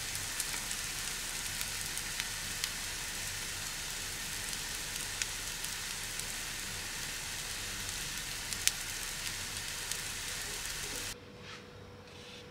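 Chickpeas and scrambled egg sizzling in a nonstick frying pan: a steady frying hiss with scattered small pops. It cuts off abruptly about eleven seconds in, leaving a faint steady hum.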